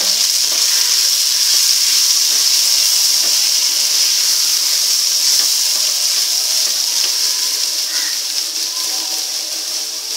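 Black pea and onion-tomato masala sizzling steadily in oil in a kadhai while a spoon stirs it, the sizzle easing slightly near the end.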